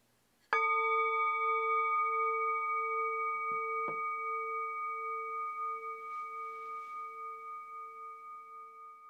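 A singing bowl struck once with a wooden mallet about half a second in, then ringing with several clear tones that slowly fade, the lowest hum wavering gently. A faint knock about four seconds in.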